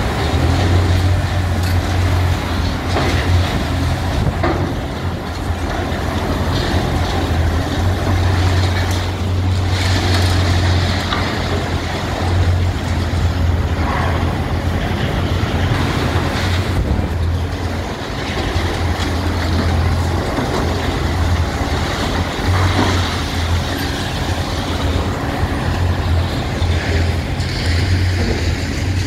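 Large tracked demolition excavator's diesel engine working under load as its hydraulic crusher breaks up a concrete viaduct deck, a steady low drone that swells and dips, with scattered cracks and knocks of breaking concrete.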